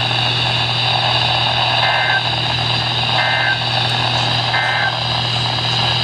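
NOAA weather radio receiver sounding the three short warbling data bursts of an Emergency Alert System end-of-message (SAME EOM) signal, about a second and a half apart, over steady radio hiss and hum.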